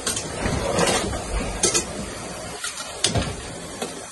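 Metal tongs clinking against a cooking pot as potatoes are handled in it: a few sharp clicks over a steady background hiss.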